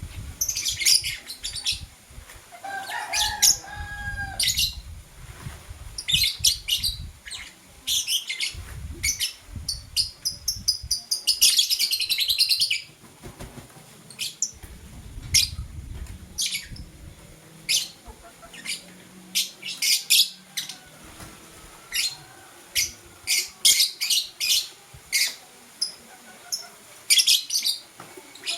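Lovebirds chirping: a string of short, sharp, high chirps, with a longer run of rapid chattering about eleven seconds in. Bursts of low rustling come in between the calls.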